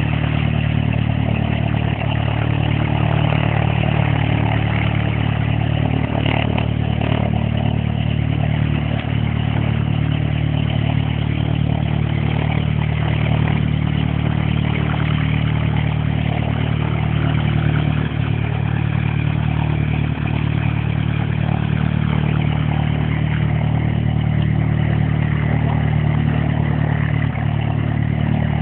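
Cessna 172 Skyhawk SP light aircraft's four-cylinder piston engine and propeller running steadily on the ground, at an even pitch and level throughout.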